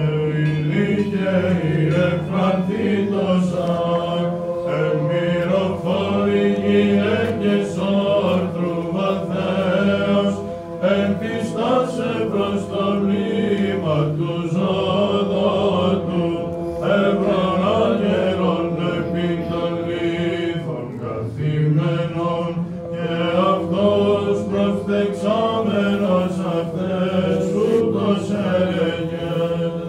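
Greek Orthodox Byzantine chant from a vespers service: voices chanting a hymn in a melody that winds up and down over sustained low notes, without pause.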